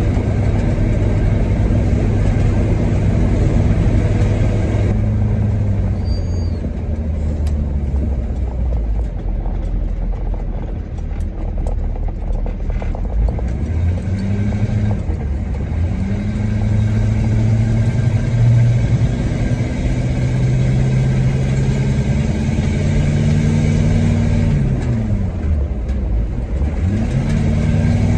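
Truck engine running under way, its revs falling and climbing again several times.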